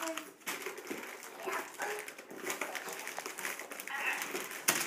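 Paper, card and plastic candy wrappers rustling and crinkling as hands rummage through a gift box, with brief small-child vocal sounds and a sharp tap near the end.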